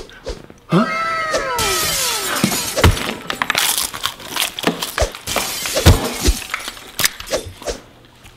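A short whining cry that rises and falls in pitch, then loud crunching and crackling as a crispy puffed snack is bitten and chewed, with scattered clicks and knocks near the end.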